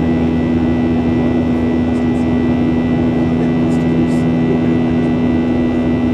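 Steady cabin roar of a Boeing 737-800 climbing out, heard from a window seat beside the wing. Its CFM56-7B turbofan engines run at an even climb setting, giving a constant low hum under airflow noise, with a thin steady high whine.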